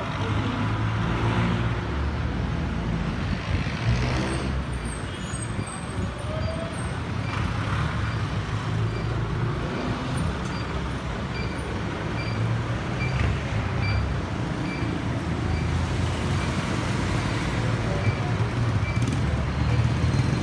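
Street traffic: a steady low rumble of idling and passing engines, including a jeepney's diesel engine as it drives past about nine seconds in. A faint short high beep repeats a little faster than once a second through the second half.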